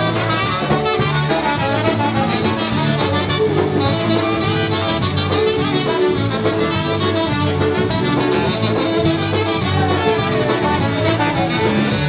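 Live polka band playing an instrumental polka, with horns over a steady dance beat.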